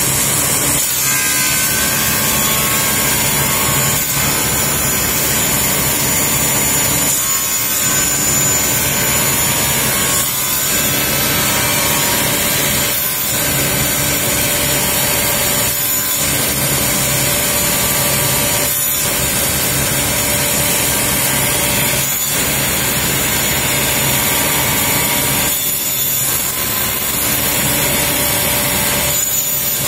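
Sliding panel saw running with its blade cutting plywood in a series of short cuts, trimming the corners off a polygon to round it into a circle. The sound dips briefly about every three seconds between cuts as the blank is turned.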